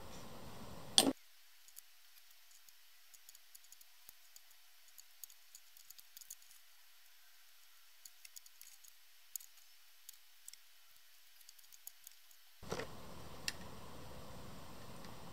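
Small clicks and taps of plastic model-kit parts, a cement bottle and hobby tools handled on a work table: one sharp click about a second in, then scattered light ticks over a faint hiss.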